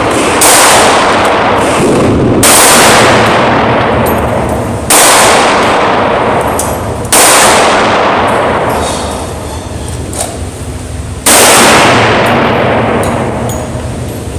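A Glock 20 10mm pistol fired five times in slow, spaced shots, mostly about two seconds apart with a longer gap before the last. Each loud shot is followed by a long, fading echo.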